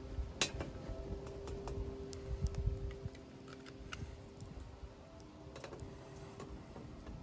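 Irregular sharp snaps and clicks of small dry sticks being broken and fed into a small wood-burning IKEA stove, with the kindling fire crackling; the loudest snap comes just under half a second in.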